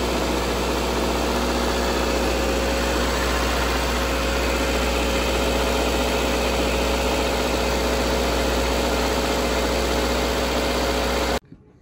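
Car engine idling steadily, with a steady whine over a low hum, just after being jump-started from a completely dead battery. It cuts off suddenly near the end.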